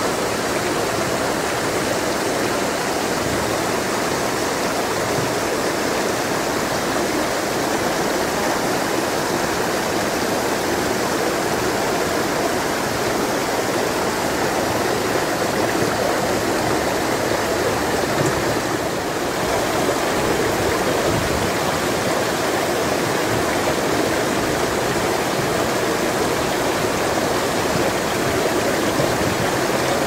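Steady rushing of running water, with a brief dip a little after halfway through.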